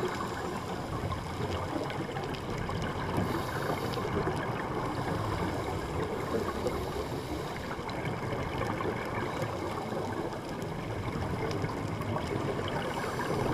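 Underwater ambience at about 12 m depth, heard through a GoPro Hero 3+ Black's waterproof housing: a steady, muffled rushing with some gurgling.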